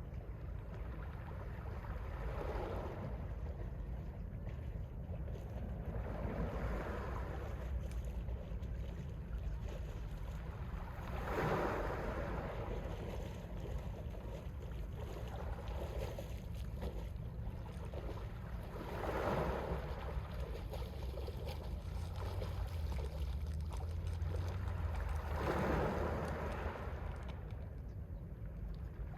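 Mediterranean sea waves breaking on the shore: about five separate washes, each swelling up and falling away, several seconds apart. Under them runs a steady low rumble of wind on the microphone.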